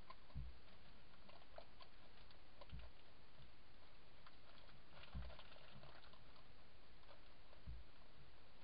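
A badger scratching and tugging at cloth bedding on a swing seat: faint rustling and scraping with small clicks, busiest about five seconds in, and soft low thumps about every two and a half seconds.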